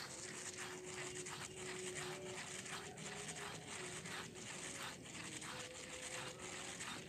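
Baitcasting reel being wound in during a topwater popper retrieve: a soft rasping that pulses about three times a second.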